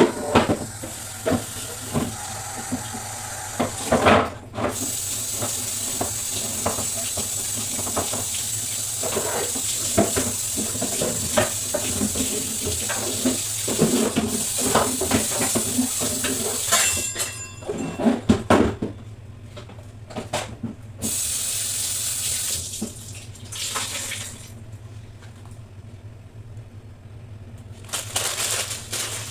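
Water running from a tap into a sink, with short knocks and clatter of things being washed; the running water stops about two-thirds of the way through, leaving scattered handling sounds.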